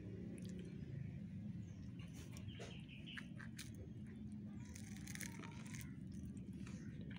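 A cat chewing and crunching a scrap of food off a concrete floor, a run of small wet clicks, over a steady low hum. A few short bird chirps come in around the middle.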